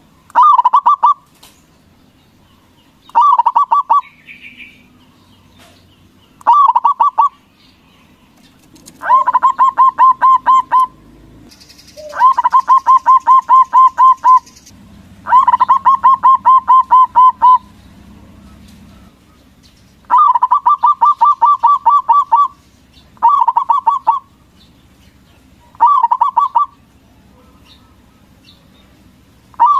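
Zebra dove (perkutut, local Javanese type) singing: about ten loud phrases of rapid, repeated cooing notes. Some phrases last about a second and others run for two to three seconds, with short pauses between them.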